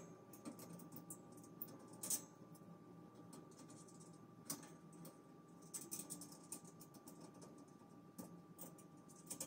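Faint, scattered clicks and light scrapes of metal wire shelf parts being handled and fitted together, a few seconds apart.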